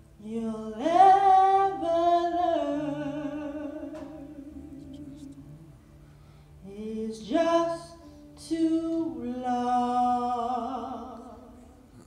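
A woman singing into a microphone in long, held notes that waver. She sings three phrases: a long one over the first four seconds, a short one about seven seconds in, and another long one from about eight and a half seconds in.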